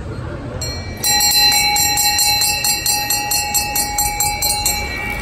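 Brass handbell rung rapidly at trackside, about four to five strokes a second for roughly four seconds starting about a second in, then fading: the lap bell signalling one lap to go.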